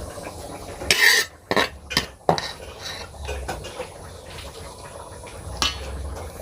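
Metal cookware clattering: a short scrape about a second in, then a quick run of sharp knocks and clinks, and one more clink near the end.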